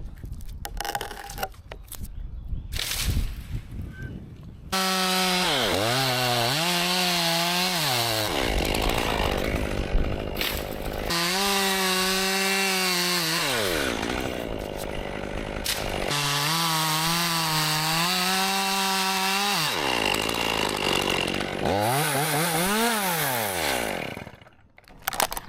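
Chainsaw cutting chunks off a dead ash trunk: after a few seconds of scattered knocks it starts running about five seconds in, its pitch sagging and recovering again and again as the chain bites into the wood, and it stops shortly before the end.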